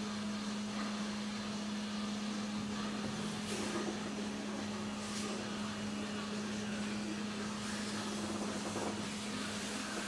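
Steady low electric hum of machinery in a workshop, with a few faint knocks.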